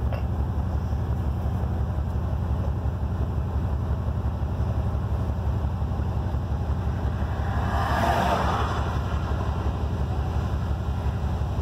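Truck engine idling steadily, a low rumble heard from inside the cab. A brief rustling noise about eight seconds in.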